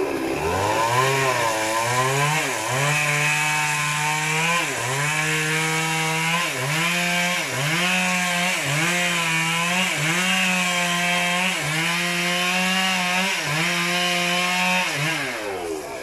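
Chainsaw running at high revs against the base of a tree trunk, its pitch sagging and recovering about once a second, then winding down shortly before the end.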